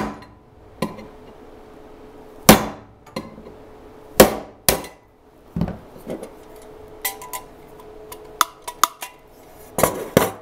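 A 3/4-inch knockout being knocked out of a steel 4-square electrical box: about six sharp hammer blows on a screwdriver set in the knockout, each leaving the box ringing. Near the end come lighter metal clicks as pliers twist the knockout slug free.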